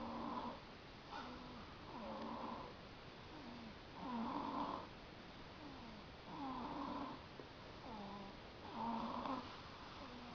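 Steady rhythmic snoring: five snores, roughly one every two seconds, each a low buzzing rasp on the in-breath.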